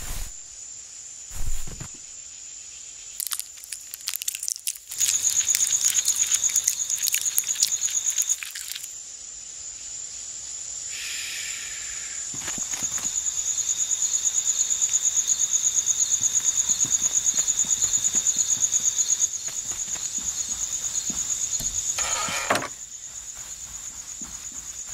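Crickets chirping steadily in an evenly pulsing high trill. A patch of rapid clicks comes in the first few seconds, and short squeaks sound near the middle and near the end.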